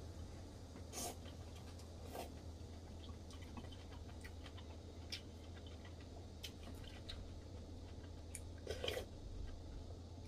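A person eating rice and sour soup: quiet chewing with scattered small clicks of chopsticks and a spoon against porcelain bowls, and a few louder short sounds about one, two and nine seconds in. A steady low hum lies underneath.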